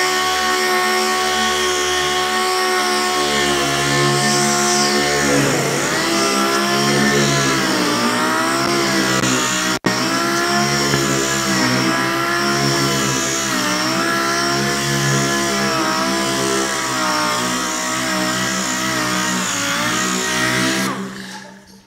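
Dual-action sander running steadily while wet-sanding fresh clear coat on a painted door. Its whine dips in pitch several times as it slows and picks back up. There is a split-second break about ten seconds in, and it winds down near the end.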